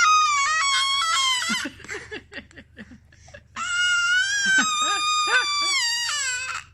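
Baby screeching at mealtime: a long, high-pitched screech that breaks off about a second and a half in, a pause of about two seconds with short soft mouth sounds, then a second long screech of about three seconds with a wavering pitch.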